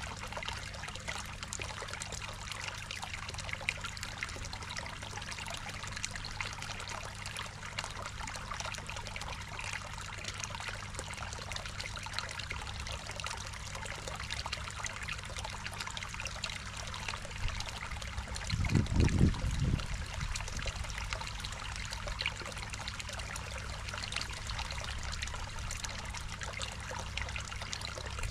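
Water trickling and pouring steadily into a garden koi pond, over a low steady hum. A brief low rumble comes about two-thirds of the way through.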